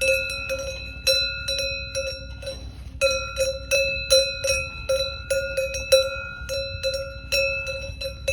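Swiss cowbells worn by cows, clanking irregularly at several strikes a second, each strike ringing on briefly.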